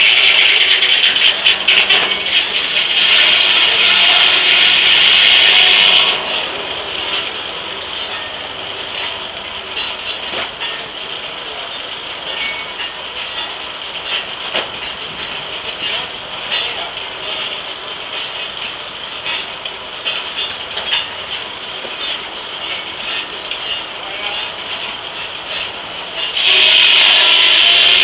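Large circular saw blade of an antique steam-powered sawmill ripping through burr oak with a high whine for about six seconds, then running between cuts while the carriage machinery clicks and rattles, and cutting into the log again with the same whine near the end.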